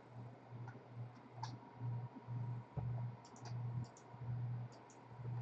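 Faint scattered clicks over a low hum that pulses on and off about twice a second.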